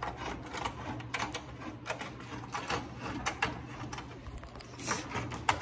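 Blade-height crank of a Performix 10-inch table saw being turned by hand, the elevation mechanism clicking and rattling irregularly as the blade is raised. The bolt is dry, and the owner means to lubricate it so it goes up and down smoothly.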